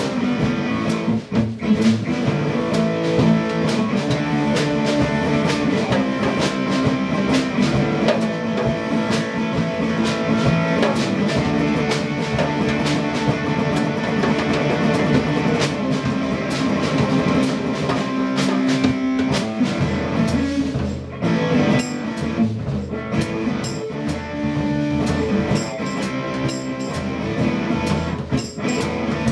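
Electric guitar and drum kit playing together live: an instrumental jam with strummed guitar chords over a steady drum beat.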